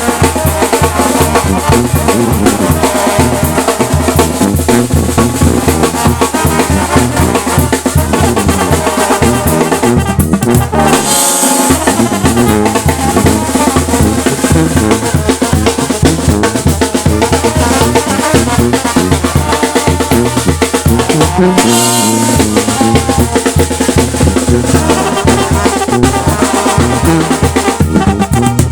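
Mexican banda music played loud: bass drum and snare keep a steady driving beat under brass. The low drums drop out briefly twice, about a third and three quarters of the way through.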